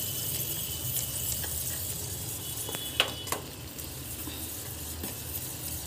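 Sugar syrup, with baking soda stirred in, bubbling and sizzling in a steel saucepan over a gas flame while a steel spoon stirs it. Two sharp clinks of the spoon against the pan come about three seconds in.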